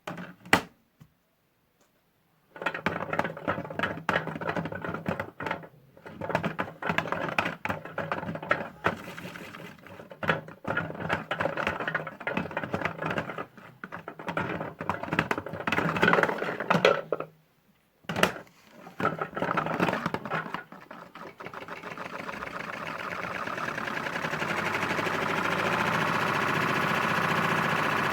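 Motor of a modified Hotpoint toy washing machine running in stop-start stretches, with a pitched motor sound and a lot of clicking and clattering. Near the end it settles into a continuous run that grows steadily louder.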